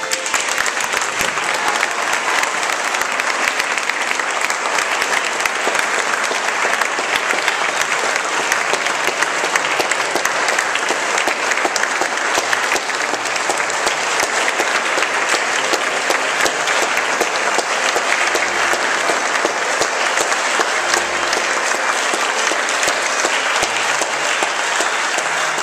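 Congregation applauding: many people clapping at once in a steady, sustained round of applause.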